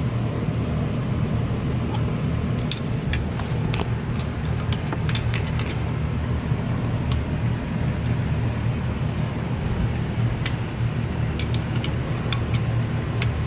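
A steady low rumbling drone, with scattered sharp metallic clicks and taps from tools and parts being handled while the rear shifter bushing is unbolted and replaced.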